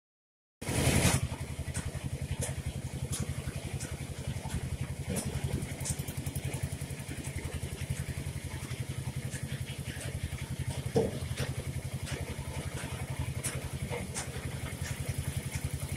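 An engine idling steadily, a fast even low thudding, with a few faint clicks and a single sharper knock about two-thirds of the way through.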